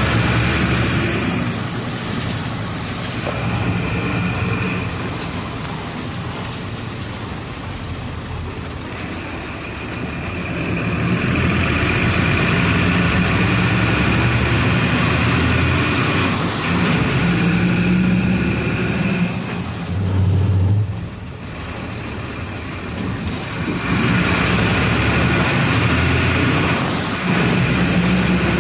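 Diesel engine of a Volksbus 17-230 EOD city bus running under way, its note rising and falling with the revs, with a faint high whine that climbs as it pulls. It eases off briefly about three-quarters of the way through before pulling again.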